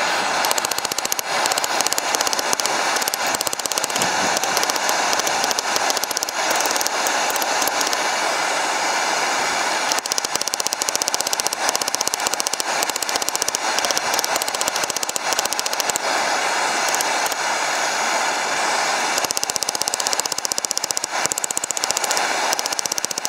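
Hand hammer striking red-hot 1/4-by-1-inch steel bar stock on an upright steel I-beam anvil in a rapid, steady run of blows, hot-forging a bolt-jaw tong blank.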